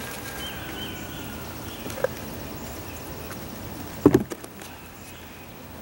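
Digging red potatoes out of a soil-filled container by hand: a small click about two seconds in and a louder knock about four seconds in, over steady outdoor background noise.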